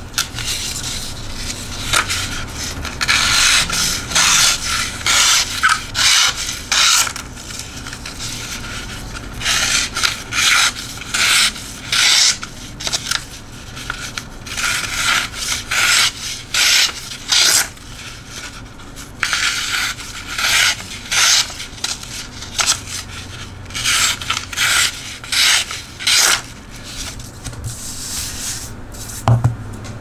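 Knife blade slicing through sheets of paper: a series of short slicing strokes in quick runs with brief pauses between them. This is a paper-cutting test of the edge's sharpness.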